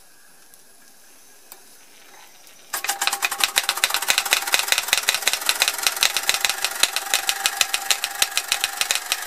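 Pair of old Bing toy steam hammers, belt-driven by a 1906 Fritz Neumeier toy steam engine, starting up about a third of the way in: a fast, even clatter of the hammer heads striking. It is quiet before that, with a single faint click.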